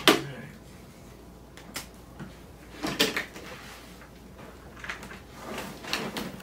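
Aluminum carrying case being handled and its lid swung open: a sharp clack at the very start, the loudest sound, then scattered clicks and knocks, with a short cluster of them about three seconds in.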